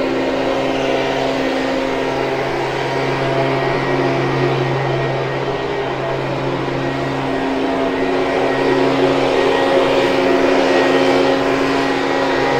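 A motor running steadily: a loud, even hum that holds one pitch.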